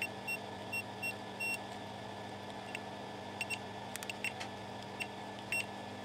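Multimeter continuity beeper giving a series of short high beeps, irregularly spaced, one a little longer about a second and a half in. Each beep sounds as the probes touch a connector pin, signalling a good solder connection to the trace.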